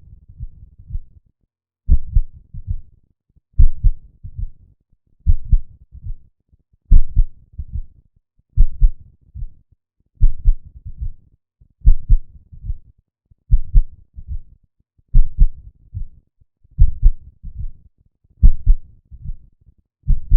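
Heart sounds from the cath lab recording, beating in repeated groups about every 1.7 seconds, each a strong beat followed by weaker ones: a bigeminal rhythm, catheter-induced bigeminy.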